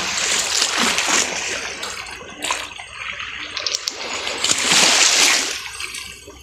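Small waves washing up a pebble beach and drawing back, the wash swelling and fading, loudest about five seconds in, with a few faint clicks of stones.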